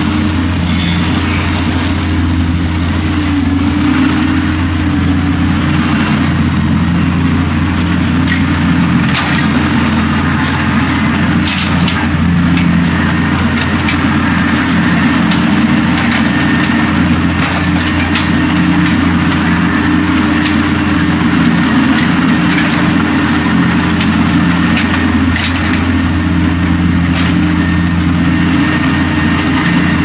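Case backhoe's diesel engine running steadily under light load while the hoe bucket works, with scattered light clicks and scrapes of the bucket moving through gravel and dirt.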